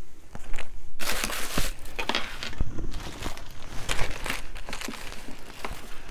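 Thin plastic packaging bag crinkling and rustling in uneven bursts as an item is pulled out of it, loudest about a second in and again around four seconds in.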